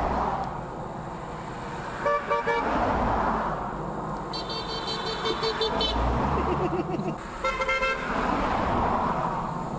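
Cars passing on a busy road, swelling and fading, with drivers honking their horns: short beeps about two seconds in, a higher, choppy honking from about four to six seconds, and another short honk near eight seconds.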